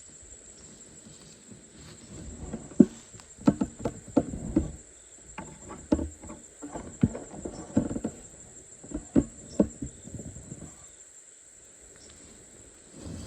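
A steady high insect trill, typical of crickets, under a run of irregular knocks and rustles that starts about two seconds in and dies away after about ten seconds.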